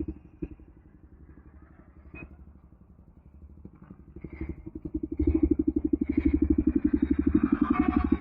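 Bajaj NS160 single-cylinder engine idling in neutral through an aftermarket SC Project exhaust, with an even pulse. The sound grows much louder about five seconds in and then holds steady, with a few light clicks early on.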